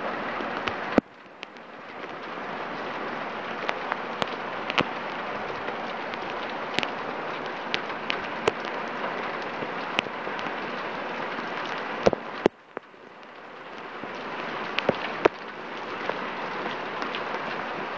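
Torrential rain falling steadily, with scattered sharp ticks of drops landing close by. Twice the hiss drops away suddenly after a sharp knock and swells back up over a few seconds.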